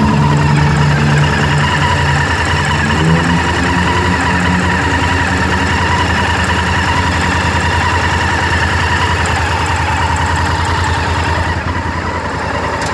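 Honda Varadero 1000 V-twin motorcycle engine idling steadily with a rapid ticking noise. The owner suspects a bad cam chain tensioner.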